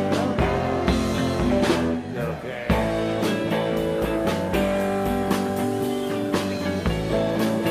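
Live band playing a laid-back blues-rock groove: electric guitar over bass and a steady drum beat, with a brief drop in level about two seconds in before the band comes back in full.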